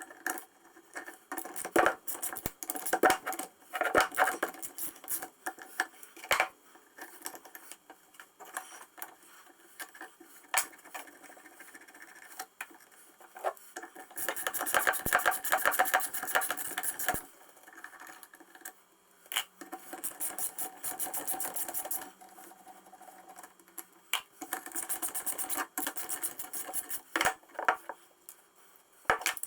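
Metal tram gear-shifter parts being taken apart and cleaned by hand: scattered clinks and knocks of metal on metal, with three runs of rapid, rhythmic strokes a few seconds long.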